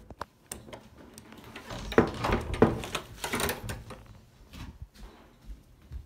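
Scattered knocks and rustling from a handheld phone being carried and jostled, with a cluster of louder knocks about two to three and a half seconds in.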